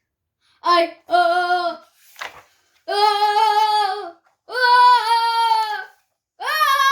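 A child's voice drawing out a series of long, held 'ahh' sounds, each a little higher than the last, with a quick breath between them: the acted build-up to a sneeze.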